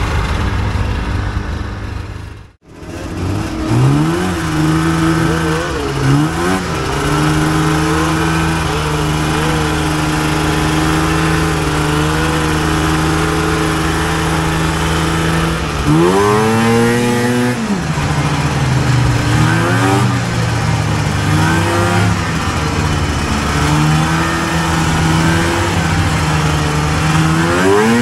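Snowmobile two-stroke engine running at a steady pitch while riding along a trail. It revs up and back down sharply about halfway through, with smaller rev changes later and another rise near the end.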